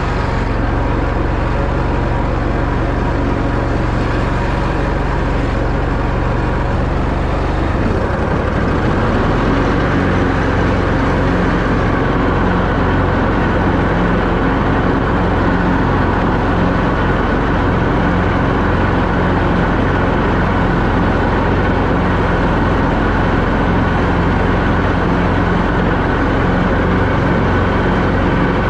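John Deere zero-turn lawn mower's engine running steadily while mowing. Its note changes about eight seconds in and then holds steady.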